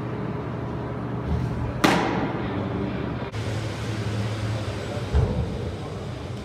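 A pitched baseball popping into a catcher's mitt once, a sharp crack with a short echo, over a steady low hum. A dull low thump comes near the end.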